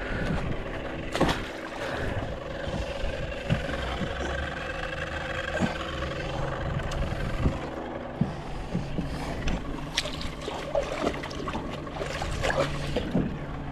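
Small boat's motor running steadily, with scattered knocks and clatter of gear being handled in the boat.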